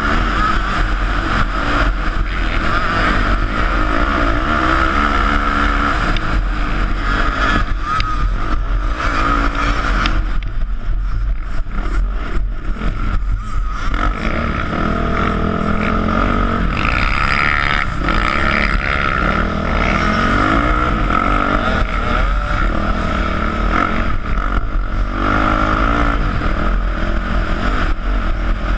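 Sport quad's engine running under changing throttle, heard from the rider's helmet with wind rumbling on the microphone. The engine backs off for a few seconds about ten seconds in, then revs up again.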